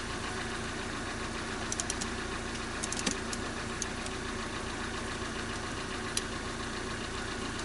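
Car engine idling steadily, with a few light clicks about two and three seconds in and one more about six seconds in.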